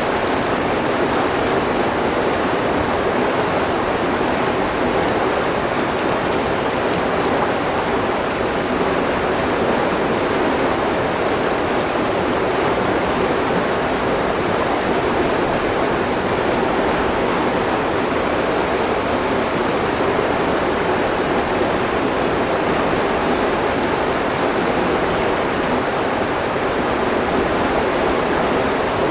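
Fast river current rushing steadily through a riffle close by.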